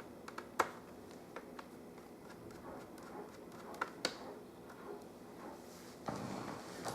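Faint, scattered clicks and taps of a small screwdriver and fingers working screws out of a laptop's screen frame, with a brief soft rustle of handling near the end.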